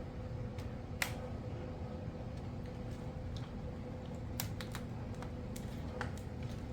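Scattered light clicks and taps of plastic Kato Unitrack sections being handled and worked into place by hand, over a steady low hum.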